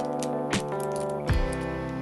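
Background music with guitar and a regular beat.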